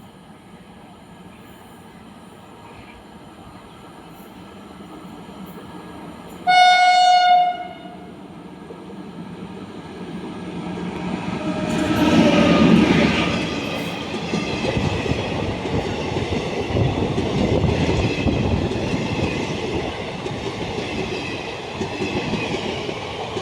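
An express train approaching at speed sounds its horn once, a single steady note lasting about a second and a half, then passes with a rising rush of noise that peaks a few seconds later and goes on with the rumble and clickety-clack of wheels over the rails.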